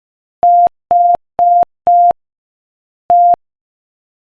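Morse code sent as a steady beep tone at 5 words per minute: four short dits in quick succession, then after a pause of about a second a single dit, spelling the letters H and E.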